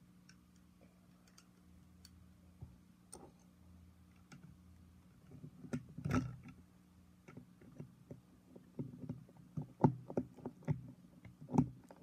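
Clicks and knocks of small plastic toy building pieces being handled and pressed together, sparse at first and busier in the second half, with the sharpest knocks about ten seconds in and near the end.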